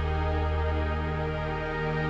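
Background music of slow, sustained new-age chords held steadily.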